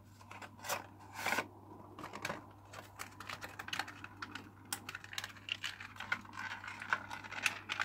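A toy's cardboard box with a clear plastic window being handled and opened: a run of irregular clicks, scrapes and crinkles, busier in the second half.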